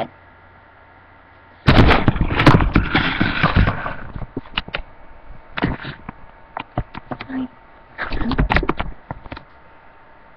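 Kitchen utensils and dishes being handled: a loud clatter lasting about two seconds, then scattered single clicks and knocks, and another burst of clattering near the end.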